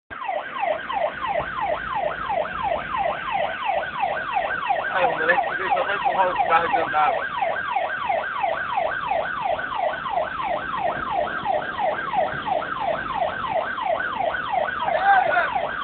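Ambulance siren in a fast yelp: quick falling sweeps of pitch, about three a second, repeating without a break.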